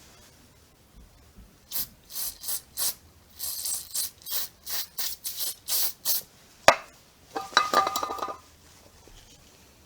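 Hand-tool work, most likely a ratchet wrench. A run of short rasping strokes comes about two a second, then one sharp click, then a quick burst of rapid ratchet clicking.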